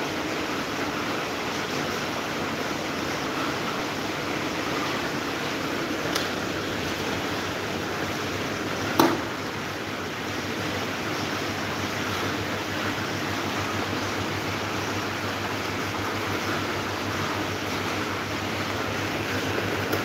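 Small electric desk fans running steadily: a constant rush of blown air over a low motor hum. A sharp click about nine seconds in, and a fainter one a few seconds earlier.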